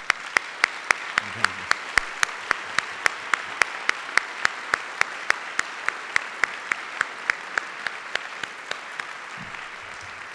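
Audience applauding, with one person's loud, even claps close to the microphone about four times a second. Those claps stop near the end while the room's applause carries on.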